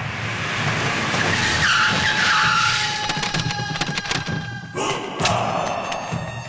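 SUVs skidding to a stop on a dirt yard, with tyres squealing in wavering sweeps, followed by a run of sharp clicks and a few knocks.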